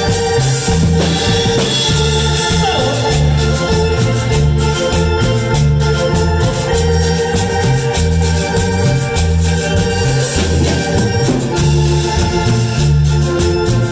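Instrumental cumbia music: an electronic keyboard playing an organ sound over a repeating bass line and steady, ticking percussion.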